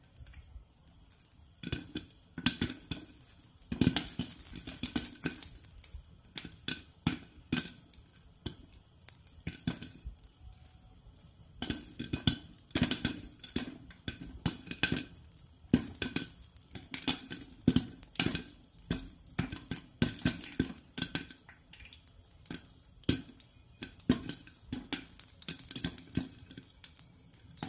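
Popcorn popping in hot oil in a covered pot: irregular sharp pops and taps of kernels against the pan and its glass lid, coming in quick clusters.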